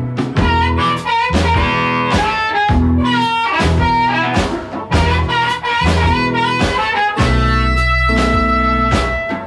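Blues band playing: electric guitar over a pulsing bass and drums, ending on a long held chord near the end.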